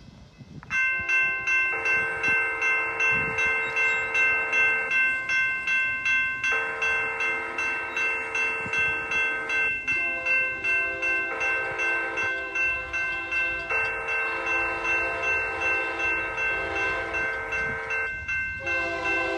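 Railroad crossing bells ringing steadily at about two strikes a second. Over them a train horn sounds the long, long, short, long crossing pattern as the train approaches.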